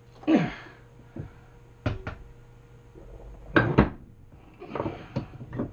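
Metal trike parts handled on the shop bench: a sweep falling in pitch near the start, two sharp clicks about two seconds in, then two louder metallic knocks, over a steady low hum.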